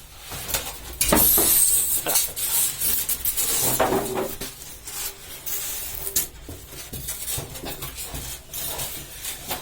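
Packaging being handled during an unboxing: a loud rustle about a second in lasting a few seconds, then scattered knocks and clicks.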